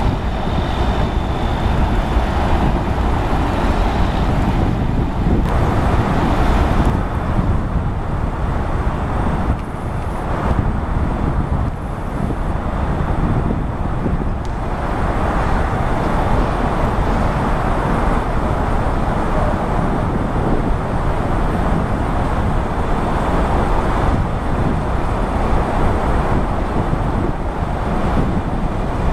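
Steady low rumble of engines at a riverside construction site, diesel machinery and road traffic blended together, with no distinct knocks or pitched tones.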